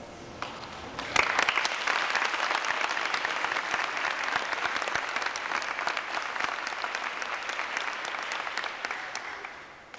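Audience applauding. One early clap, then the applause breaks out about a second in and dies away near the end.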